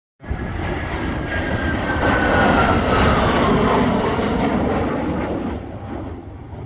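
Jet fighter flying past: rumbling engine noise with a whine that falls in pitch. It starts suddenly, is loudest about three seconds in, then fades away.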